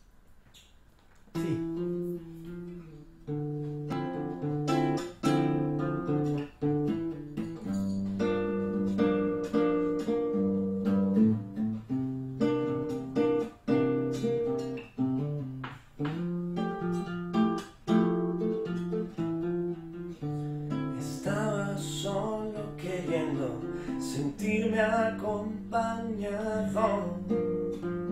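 Acoustic guitar played solo, chords strummed from about a second and a half in. A man's voice starts singing over it about twenty seconds in.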